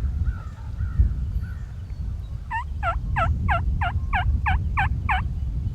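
A run of eight turkey yelps, about three a second, each note dropping in pitch, starting about two and a half seconds in, over a steady low rumble.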